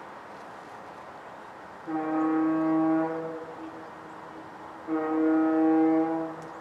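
Golden Gate Bridge foghorn sounding two long, deep, steady blasts about three seconds apart, each with a short fading tail.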